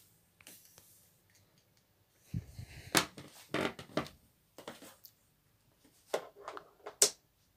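Phone being handled close to its microphone: bursts of knocking, rubbing and clicks, with a sharp click near the end.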